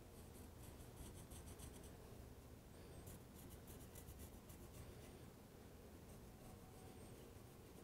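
Faint squeak and scratch of a Sharpie felt-tip marker drawn around a metal exhaust pipe, in a few short runs of quick strokes, marking the cut line on the factory exhaust pipe.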